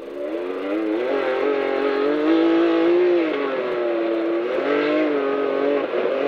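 Can-Am Maverick X3 side-by-side's turbocharged three-cylinder engine accelerating hard from inside the cockpit: it picks up sharply at the start, climbs in pitch, then dips and rises again twice as the throttle is lifted and reapplied.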